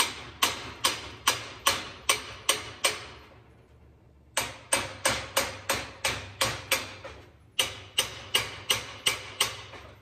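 Hammer striking the steel yoke of a truck driveshaft held in a vise, a quick run of sharp, ringing metal-on-metal blows at about two to three a second, pausing briefly twice. The blows are knocking out the caps of worn U-joints after they have been cut with a grinder.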